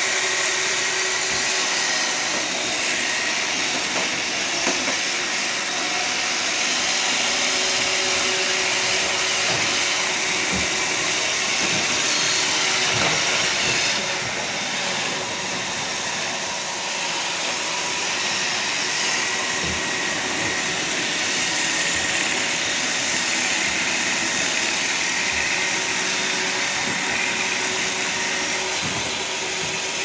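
Roomba robot vacuum cleaner running: a steady whirr of its vacuum motor and brushes, with a thin steady whine through it.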